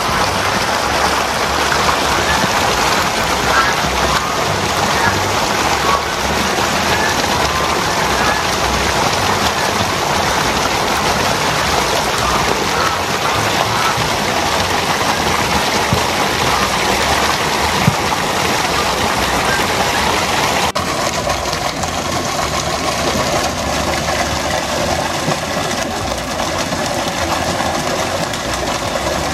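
Steady rushing of water, an even hiss-like wash of sound; its character changes abruptly about two-thirds of the way through.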